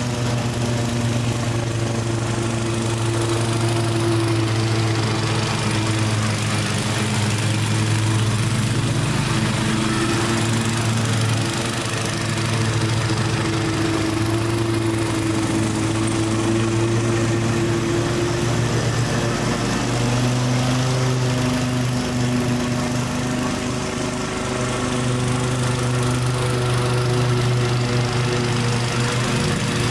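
Kohler Command Pro CV224 single-cylinder engine on a Toro Timemaster push mower running steadily under load, mulching long (about 8 inch) grass. It holds its speed without bogging down, with only a slight change in its note about two-thirds of the way through.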